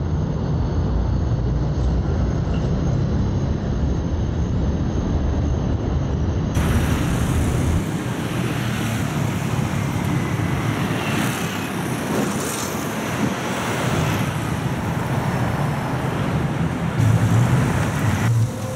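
Busy city street traffic: a steady rumble of car and bus engines with tyre noise. The deep rumble thins about seven seconds in, leaving a hissier street noise, and a heavier engine rumble comes up again near the end.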